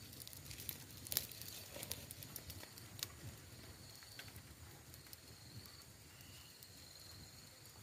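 Small wood campfire crackling, with scattered sharp pops, the sharpest about a second in and again near three seconds.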